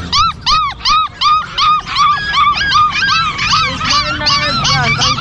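Caged puppies yelping: a rapid run of short, high yelps, each rising and falling in pitch, about four a second. Near the end other puppies join in at different pitches.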